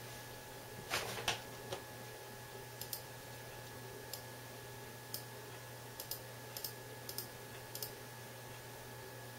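Computer mouse clicking: a louder cluster of clicks about a second in, then a dozen or so short, sharp clicks, many in quick pairs, spread through the rest. A steady low hum and a faint high whine run underneath.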